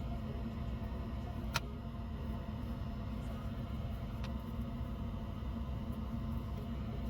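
A steady low hum with a light rumble, like a small fan or bench equipment running. One sharp light click comes about one and a half seconds in, and a fainter one about four seconds in.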